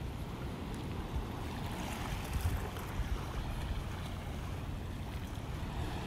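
Wind buffeting the microphone: a steady, uneven low rumble with a light hiss above it.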